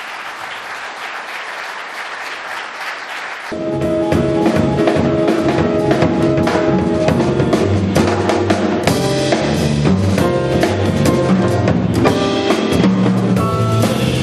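Audience applauding, then a sudden cut about three and a half seconds in to a jazz piano trio playing: grand piano, upright double bass and drum kit.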